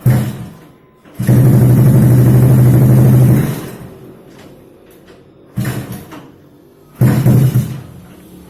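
Motorcycle engine, newly upgraded to 200cc, revved in bursts: a short blip, then a long hold of about two seconds that dies away, then two shorter blips.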